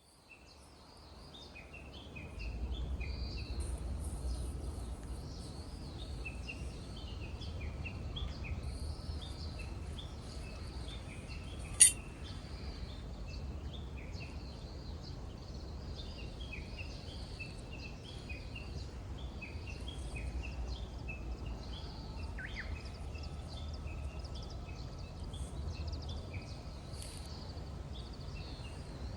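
Many small birds chirping outdoors, with short quick chirps overlapping, over a low steady rumble that fades in over the first couple of seconds. A single sharp click about twelve seconds in.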